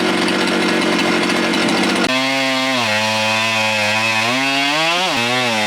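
Husqvarna chainsaw on an Alaskan mill running at high throttle through a long rip cut in a large log. About two seconds in its note changes suddenly to a clearer engine tone, and the pitch then sags and recovers a few times. The chain is dull, which the operators blame for a rough cut.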